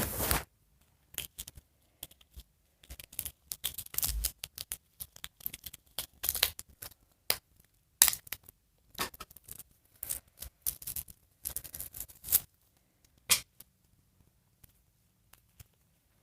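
Handling noise of a fashion doll being dressed: irregular rustling, scratching and light clicks of clothes and small plastic pieces, which stop about 13 seconds in.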